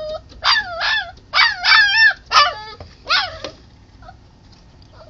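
Puppy making a run of short, high, whining yips and howl-like cries, each bending up and down in pitch, about seven of them, stopping about three and a half seconds in.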